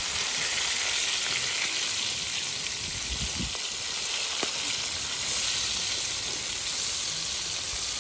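Fish frying in hot oil, a steady, even sizzle, with a couple of faint low knocks about three seconds in.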